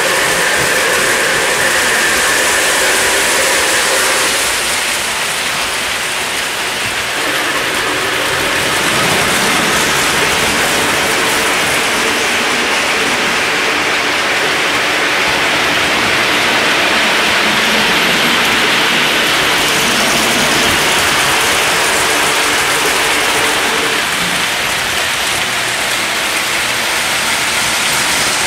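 O gauge model trains running on the layout's metal track: a steady rattling rumble of wheels and motors that rises and falls in loudness as the trains move closer and farther away.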